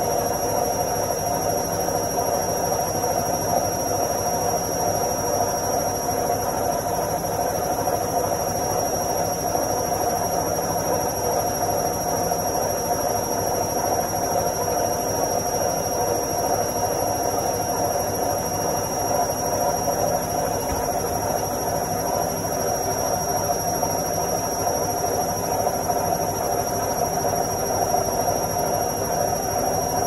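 Front-loading washing machine on its spin cycle, running at a steady speed with a continuous whirring hum and a faint high whine.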